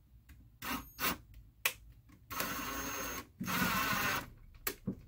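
Ryobi cordless drill driving screws in two runs of about a second each, after a few light clicks and knocks.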